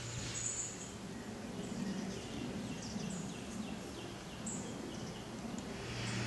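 Outdoor ambience with a small bird chirping: a run of short, falling chirps about three a second, with a few higher calls above, over a soft background hiss.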